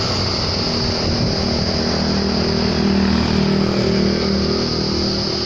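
Truck diesel engine idling steadily, its hum swelling a little around the middle, over a constant high insect trill.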